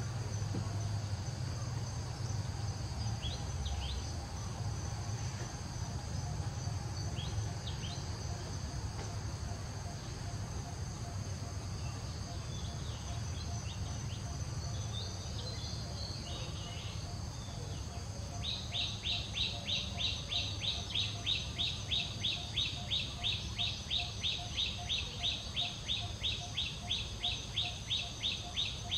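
Forest ambience: a steady high insect drone with a few scattered bird chirps. About two-thirds of the way in, a loud call starts repeating evenly at two or three pulses a second.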